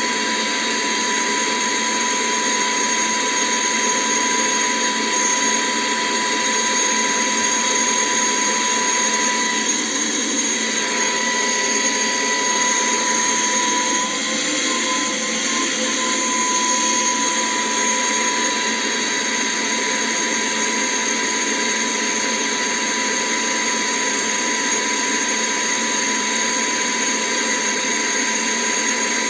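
ILife H70 cordless handheld vacuum cleaner running continuously, a steady motor whine over a rush of air.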